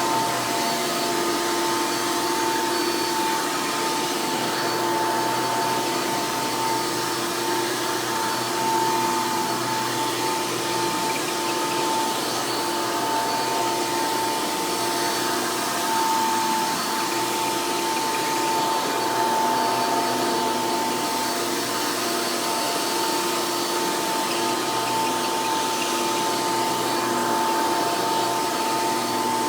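Hoover upright vacuum cleaner with a direct-air (fan-in-base) Caddy Vac lower base, its motor running steadily with a constant high whine over the rush of air.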